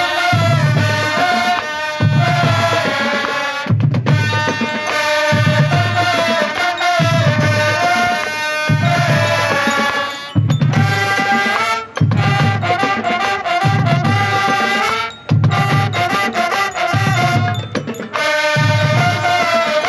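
School marching band playing: the brass section carries a melody over a steady beat of bass and snare drums. The sound briefly drops out a few times.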